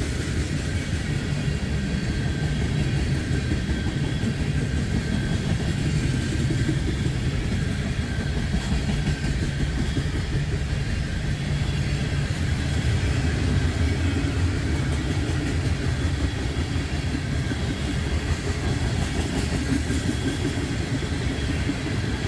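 Freight train cars rolling past on the rails: a steady, continuous rumble.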